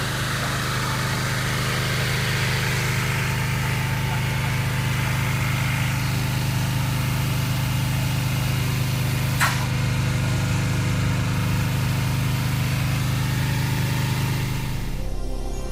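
Tornado ACS vacuum blast cleaner running while its blast head works graffiti off natural stone: a steady motor hum under a continuous hiss of air and abrasive granules. A single sharp click about nine and a half seconds in, and the machine sound cuts off near the end.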